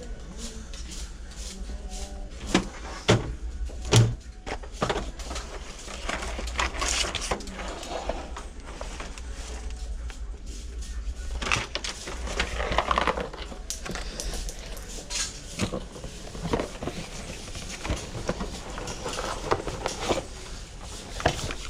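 Irregular knocks, clicks and clinks of hard objects being picked up and set down, over a steady low hum of the store's background.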